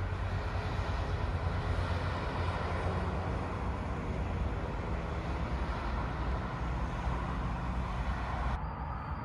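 Continuous noise of busy roundabout traffic, with cars driving past at speed and their engine and tyre noise blending into one steady wash. The sound turns suddenly duller near the end.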